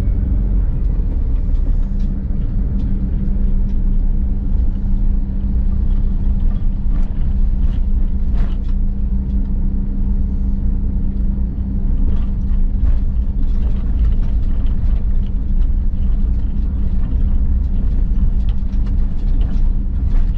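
Motorhome driving along a town street, heard from inside the cab: a steady low engine drone and road rumble with a constant hum, and light clicks and rattles now and then, more of them in the second half.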